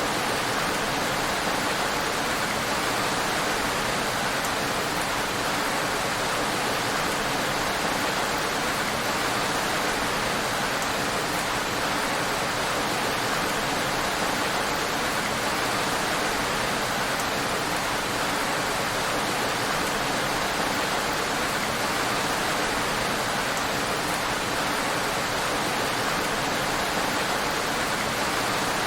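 Heavy rain falling steadily: a dense, even hiss with no single drops or other events standing out.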